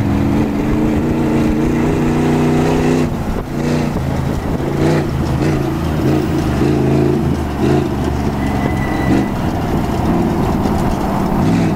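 A 1998 GMC desert race truck's engine running hard as the truck drives past over rough desert ground. The note holds fairly steady for about three seconds, then rises and falls over and over as the throttle is worked over the bumps.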